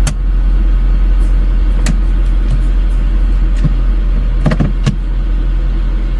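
A 2011 Acura CSX's four-cylinder engine idling steadily with a low hum, with a few sharp clicks about two, four and a half and five seconds in.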